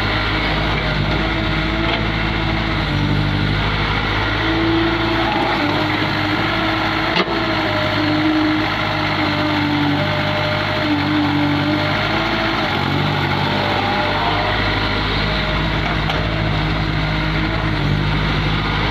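Caterpillar 365C excavator's diesel engine running steadily as the machine works, with humming tones that step and shift in pitch. A single sharp click comes about seven seconds in.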